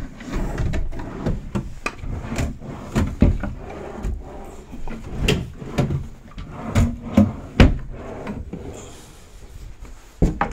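Dresser drawers being pulled open and pushed shut one after another, each sliding with a rumble and closing with a sharp knock.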